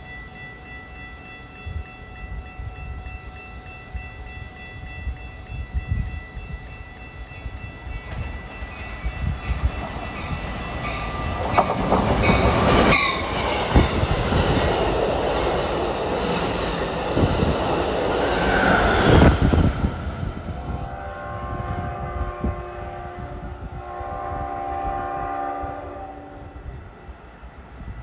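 Amtrak passenger train passing close by the platform at speed, a loud rush of wheels and cars on the rails for about ten seconds. As it moves away, a train horn sounds two long chord blasts.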